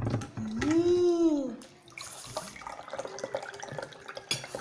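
Water poured from a plastic bottle into a drinking glass. Before the pour, about a second in, a short voiced sound rises and then falls in pitch.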